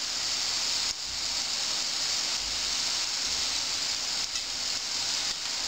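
Corn buñuelos deep-frying in a pan of oil at medium heat: a steady sizzling hiss of oil bubbling around the dough balls.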